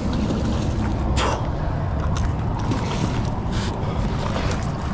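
Steady low rumble of wind buffeting the microphone, with a couple of brief noises over it.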